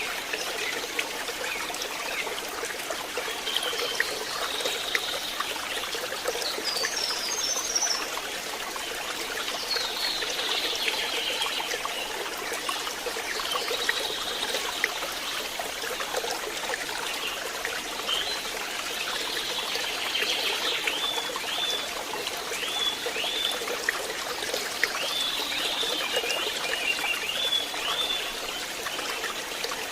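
A forest stream trickling and splashing steadily over stones. Above it, animal calls chirp high, coming more often and in repeated short notes about once a second in the second half.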